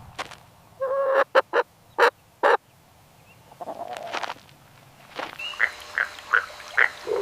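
Chicken clucking: a run of short clucks, with a quicker, more regular series of clucks near the end.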